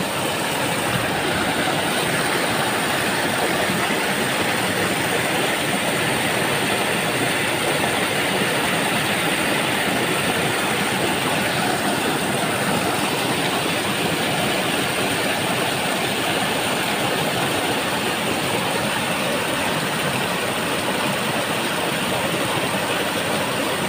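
Steady rushing of fast-flowing water in a small ditch.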